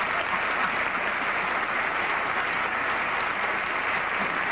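Studio audience applauding steadily, greeting the panel's correct guess.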